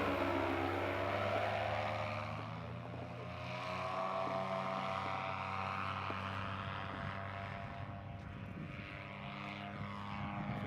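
Moster 185 Plus single-cylinder two-stroke paramotor engine and propeller running steadily in flight. Its pitch eases slightly a couple of seconds in, then holds.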